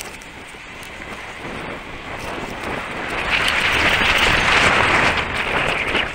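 Wind and rubbing noise on the microphone of a loosely strapped, chest-mounted GoPro while riding a mountain bike on tarmac, a steady hiss that grows louder about three seconds in.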